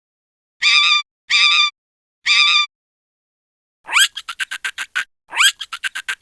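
Monkey calls: three short, even, high-pitched calls, then two calls that rise sharply in pitch and break into a rapid chatter of about eight pulses a second.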